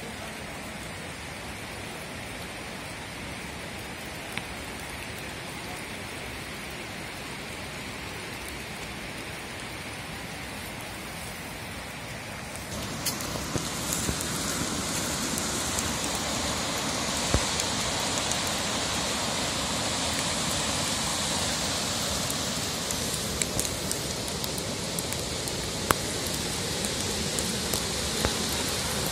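Steady rush of a fast mountain river over rocks. About 13 seconds in it turns louder and more hissing, with a few faint clicks on top.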